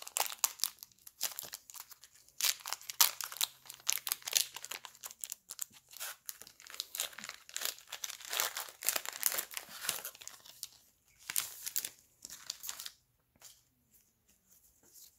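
Foil wrapper of a Pokémon TCG booster pack being torn open and crinkled by hand: irregular rustling and crinkling that tails off near the end.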